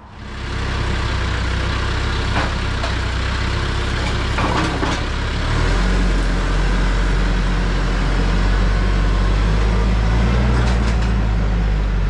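Compact tractor's engine running steadily while its front loader sets a log onto a sawmill bed; its low note drops about five and a half seconds in.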